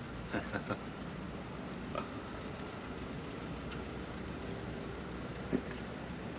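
Steady low outdoor background rumble with a few faint, scattered clicks and taps.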